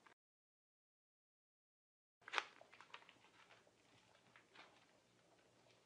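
Near silence: the sound cuts out completely for about two seconds, then comes back with faint rustling and small clicks of a paper sheet being handled and folded, the sharpest click just as the sound returns.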